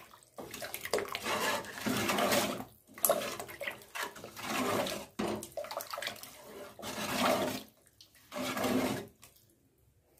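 Metal ladle stirring thin sambar in an aluminium pot: the liquid sloshes in repeated strokes about once a second, stopping near the end.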